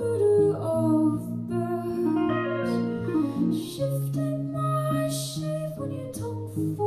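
Live band playing an instrumental song intro: held and plucked guitar notes, some bending in pitch, over a steady low bass line.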